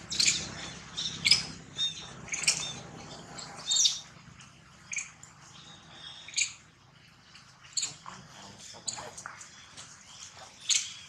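Young long-tailed macaques giving short, sharp, high-pitched squeaks and chirps about every second, loudest in the first four seconds and sparser after, with one loud call near the end. These are alarm calls at a snake on the ground.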